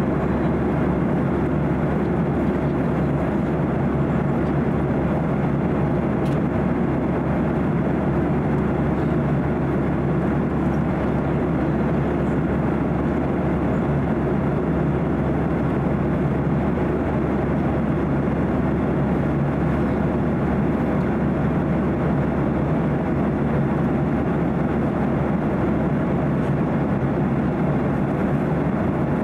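Steady cabin noise of a Boeing 737-800 in flight: the even rush of airflow over the fuselage mixed with the low drone of its CFM56 turbofan engines, unchanging throughout.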